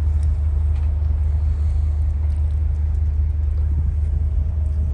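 Steady low drone of the ferry MV Isle of Arran's engines and ship's machinery, heard from the open deck.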